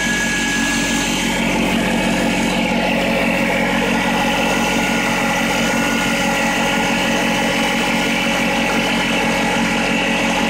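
Compact tractor's engine running steadily with an even, fast pulse, under load as its front-end loader bucket pulls English ivy roots out of the ground.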